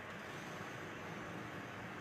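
Steady low hiss of room noise.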